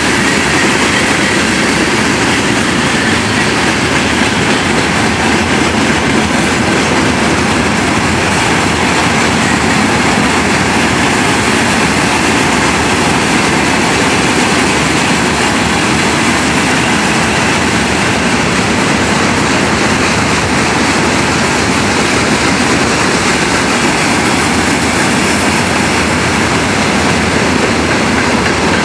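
Freight train wagons rolling past: a steady, loud noise of steel wheels running on the rails.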